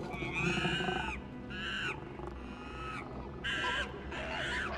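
Chimpanzees calling from their cage: a series of about five short, high hooting cries.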